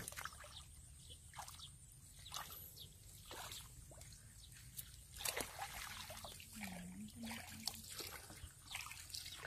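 Faint sloshing and small splashes of shallow muddy water as hands and legs move through it, groping in the mud for fish.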